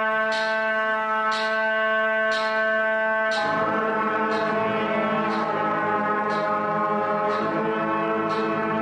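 A student brass ensemble of trumpets and trombones with a low valved horn holds a long sustained chord, then moves to a new held chord about three and a half seconds in. A faint click keeps a steady beat about once a second.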